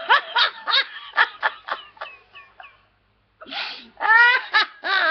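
A woman laughing uncontrollably: a fast run of short giggles that trails off, a brief pause, then louder, longer, high-pitched laughs.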